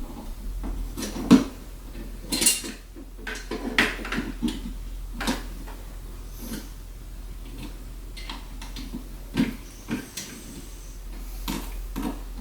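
Irregular clicks, clinks and knocks of hardware being handled, as case fans and their screws are fitted into a PC case, over a low steady hum.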